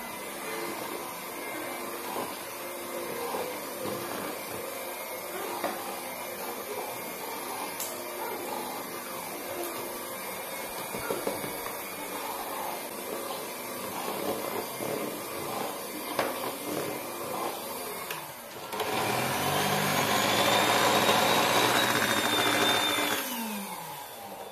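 Electric hand mixer beating creamed butter, sugar and eggs for cookie dough, its motor whirring steadily. It gets louder for a few seconds about three-quarters through, then its pitch falls as it winds down near the end.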